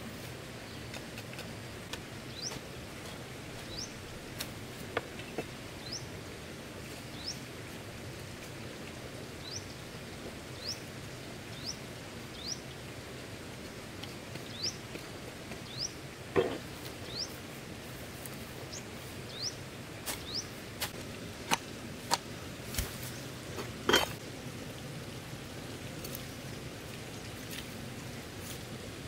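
A small bird chirping, short high upward chirps repeated every second or so over steady outdoor background noise, with a few sharp clinks and knocks of utensils or dishes in the second half.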